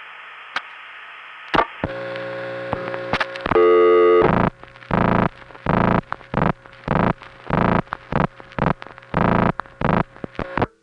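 Old long-distance telephone line: faint hiss and a few clicks. At about 2 seconds a buzzy tone comes on, swells loud, then turns into a harsh tone switched on and off a little under twice a second, the kind of interrupted signal old step-by-step offices sent back over the line.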